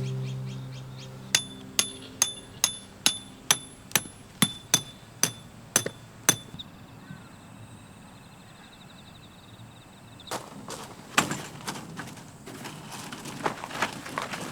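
About a dozen sharp metallic strikes, roughly two a second, each ringing briefly: a hammer driving a tent peg. The last of a music track fades out at the start, and crunching footsteps begin near the end.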